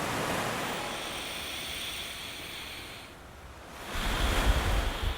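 Ocean waves washing in, in two swells. The first rises at the start and eases off over about three seconds. The second, louder and with a deep rumble, breaks about four seconds in.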